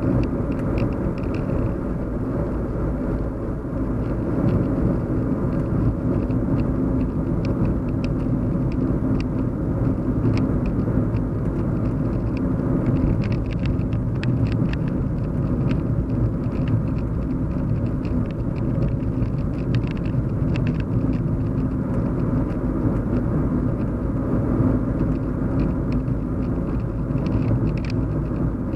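Steady low hum and rumble of a car in motion, heard from inside the cabin, with faint scattered ticks over it.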